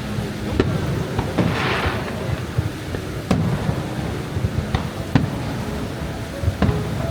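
Aerial fireworks going off: a series of sharp bangs a second or two apart over a low, continuous booming rumble, with a short crackling hiss about one and a half seconds in.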